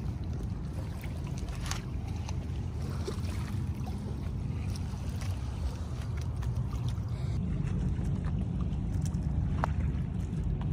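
Steady low outdoor rumble of wind on the microphone and water at a lakeshore, with a few faint clicks.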